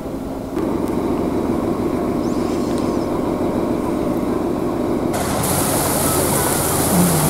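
The passenger boat's engine running steadily as it pulls away from the pier. About five seconds in, a loud rushing hiss of air and water comes in over the engine and stays.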